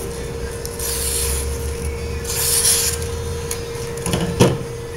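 Knife blade slicing through a sheet of paper in a sharpness test: two hissing cuts about a second apart, the second louder, then a sharp tap near the end.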